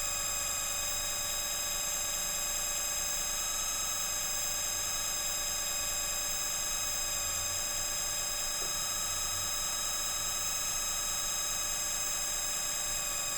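Moose hot lather machine running while it whips up shaving lather: a steady electric buzz with a high whine that holds the same pitch throughout.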